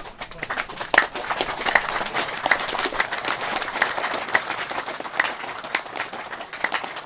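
A crowd clapping: many hands applauding together, swelling about a second in and thinning out near the end, with some louder single claps standing out.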